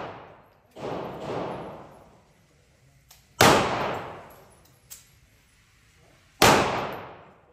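9mm Glock pistol fired twice, about three seconds apart, each loud shot echoing for about a second in an indoor shooting range. Two fainter bangs come close together about a second in.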